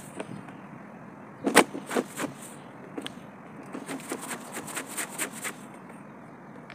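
Stiff-bristled push broom scrubbing wet clothes laid on a flat panel. A few hard scrubbing strokes come about a second and a half in, then a quicker run of about eight strokes from around four seconds.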